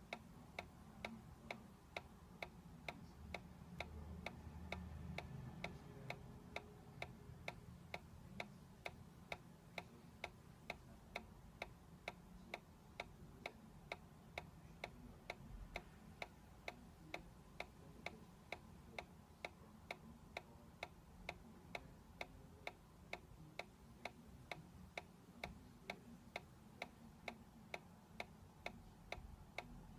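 Solar-powered dancing toy's magnet-and-coil rocking mechanism ticking steadily, about two light clicks a second, over faint low room noise.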